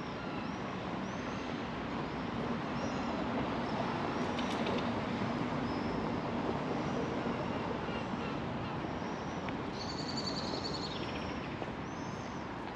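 Steady city street noise of traffic with short, high bird calls repeating over it, and a louder run of calls about ten seconds in.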